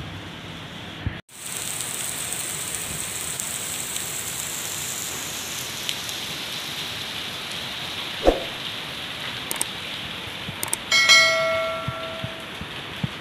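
Heavy rain pouring down in a steady hiss, broken by a moment of silence about a second in. A few sharp knocks sound later. Near the end a short ringing tone rings out and fades.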